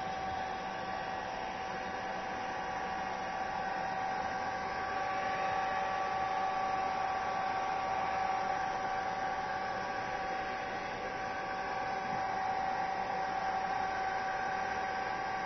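Hair dryer running steadily, a constant whir with a high steady tone, blowing on a wet cat's fur as it is dried.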